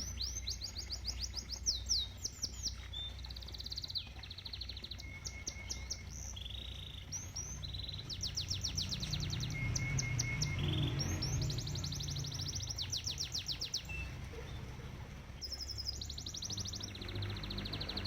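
Domestic canary singing: fast trills and rolls of high notes repeated many times a second, some sweeping downward, in phrases separated by short pauses. Underneath, a steady low rush of moving water from a koi pond.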